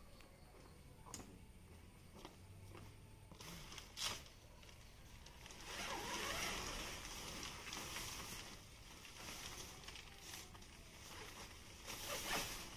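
Rustling and handling of nylon tent fabric, with a few scattered clicks and knocks; the rustling grows louder about five seconds in.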